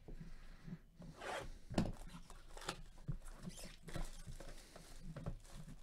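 Shrink wrap being ripped off a sealed cardboard box of trading cards and the box handled open: a run of short, irregular crinkling rips and cardboard scrapes.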